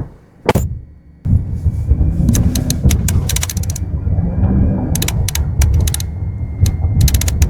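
Jeep Grand Cherokee interior rattle picked up by a microphone at the right rear of the cabin while driving over bumps: a steady low road rumble with many sharp clicking and rattling hits, very loud and clear. The clatter comes from the rear-seat adjustment release cable and a 3D floor mat knocking against the plastic door-step trim. There is a single knock about half a second in, before the rumble starts at about a second in.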